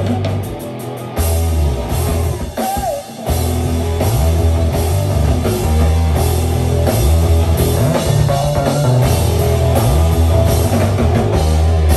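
Live rock band playing an instrumental passage with electric guitar, bass and drum kit; the sound drops briefly about three seconds in, then the full band comes back in.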